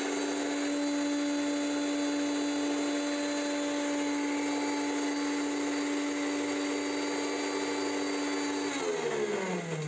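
Preethi Crown mixer grinder running steadily, blending egg whites and lemon juice in its steel jar. A little before the end it is switched off and the motor whine falls in pitch as it spins down.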